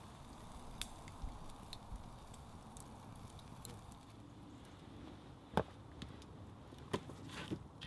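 Campfire crackling under grilling steaks: a low hiss with scattered faint pops. In the second half come three sharper knocks.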